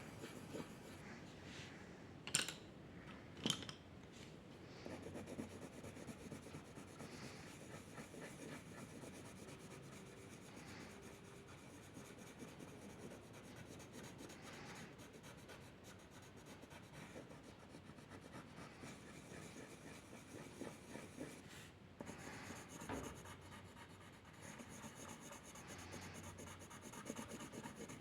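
Faint scratching and rubbing of a drawing tool moving across paper, in short continuous strokes. Two sharp clicks come a little after two seconds in and about a second later.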